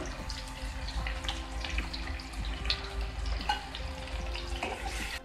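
Potato chunks and onions frying in oil in a non-stick pan: a steady sizzle with frequent small crackles, and a spatula stirring and scraping in the pan.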